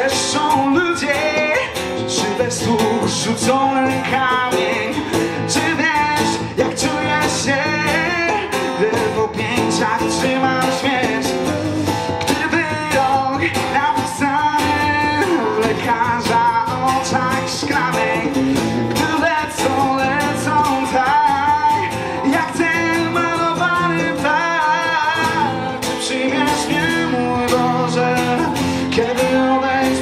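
Live band music: an amplified electric guitar and a strummed acoustic guitar playing a song together, with singing heard at times.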